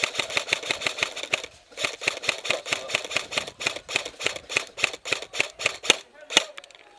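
Airsoft gun firing close by in long strings of quick shots, about eight a second, with a short break after a second and a half, then one last shot near the end.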